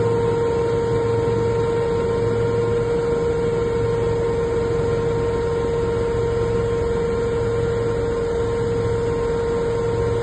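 Westland Lynx Mk7 helicopter in fast forward flight, heard inside the cockpit: a steady high whine over a low drone and constant rushing noise.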